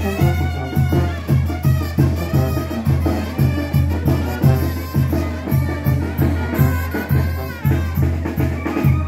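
Village brass band playing a lively dance tune: tuba bass notes and drum beat keep a steady pulse, about two and a half beats a second, under the brass melody.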